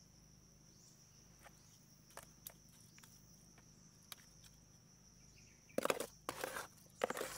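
Insects, crickets, trilling steadily and high-pitched, with a few faint clicks. About six seconds in and again near the end come two short, loud scuffing noises.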